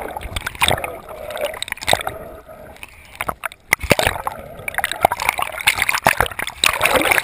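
Water rushing and bubbling around a camera held underwater, with many scattered sharp clicks and taps.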